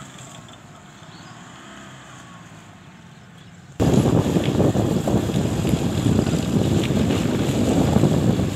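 Wind buffeting the microphone: a loud, rough rumble that cuts in suddenly about four seconds in, after a fairly quiet start.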